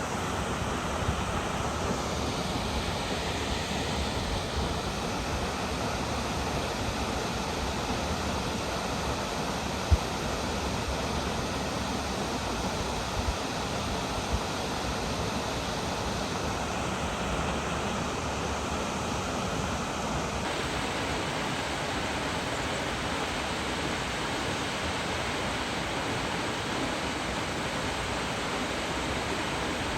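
Steady rushing roar of a tall waterfall falling into its plunge pool, its tone shifting slightly a few times. A brief sharp knock comes about ten seconds in.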